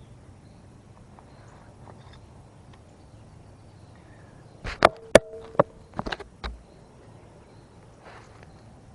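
A quick run of sharp clicks and knocks from metal-detecting gear being handled, with a short low tone among them, about five to six and a half seconds in.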